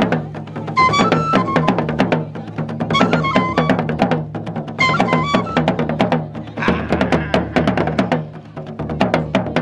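Gourounsi traditional hand drums played together in a fast, dense, steady rhythm. A short high-pitched melodic phrase recurs about every two seconds over the drumming.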